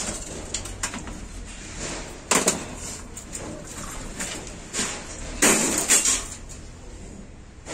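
Emptied sheet-steel PC case being handled: several clanks and scrapes of metal, the loudest about two and a half seconds in and again in a longer clatter around five and a half to six seconds.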